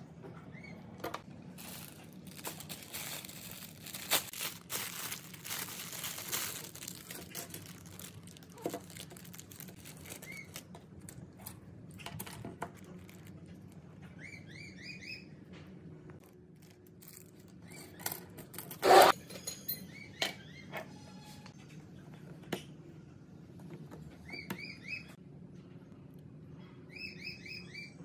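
Hand-work on small parts: scattered clicks and rustling, with scraping over the first few seconds and a sharp knock about two-thirds of the way through. Short groups of rising chirps come a few times in the second half.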